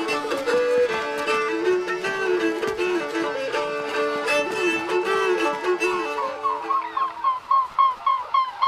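Folk dance tune played on fiddle over a steady drone, fading out after about six seconds. Near the end a fast, regular series of short pulsing notes comes in, about four a second, from a flock of swans in flight.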